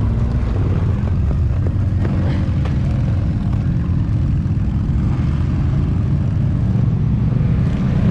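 Side-by-side UTV engine running at a steady idle, an even low hum close by with no revving.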